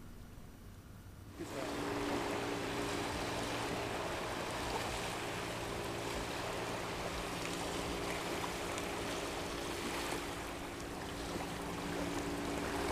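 Wind noise and small waves lapping at a grassy marsh shoreline, a steady rushing hiss with a low steady motor hum underneath. It starts abruptly about a second and a half in, with only faint background before that.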